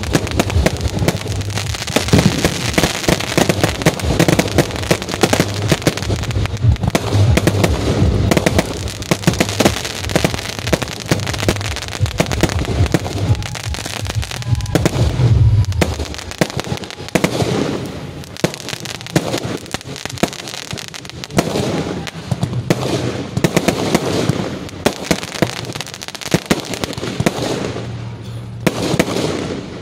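Aerial fireworks firing in rapid succession: a dense, continuous crackle of pops and sharp bangs. The barrage is heaviest in the first half, then thins to more spaced bangs a little past halfway.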